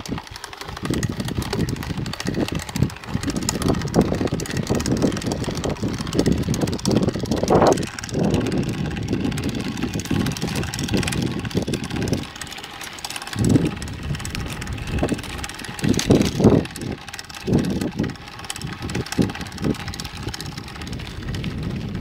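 Mountain bike being ridden over rough ground, with irregular thumps and rattles from the bike and a steady rush of air or tyres.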